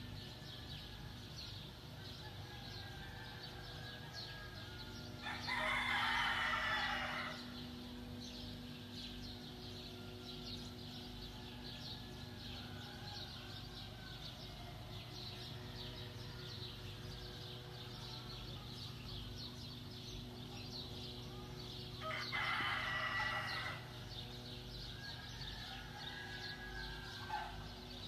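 Rooster crowing twice, each crow about two seconds long, over a steady low hum.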